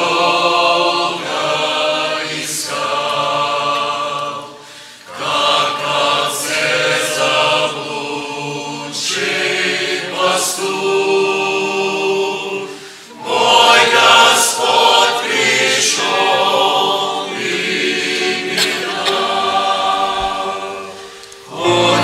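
Mixed church choir singing a hymn in Russian, in long phrases with short pauses for breath between them.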